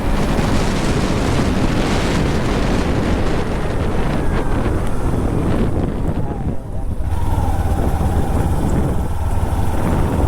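Motorcycle running while being ridden, with wind rushing over the microphone. About six and a half seconds in the sound dips briefly, then a steady low engine hum carries on, with a steady higher tone over it through the last few seconds.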